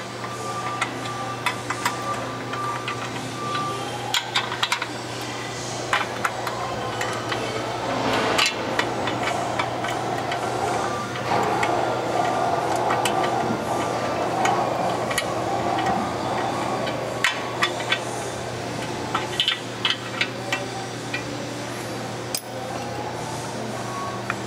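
Scattered light clicks and knocks of hand work at a newly mounted clutch cover: the clutch alignment tool being worked in and out of the disc splines and pilot to check the fit. A steady low hum runs underneath.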